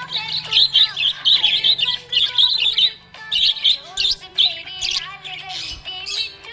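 Budgerigar chirping and warbling in quick, high chirps. The chirping is dense for the first three seconds, breaks off briefly, then goes on more sparsely with short warbled notes.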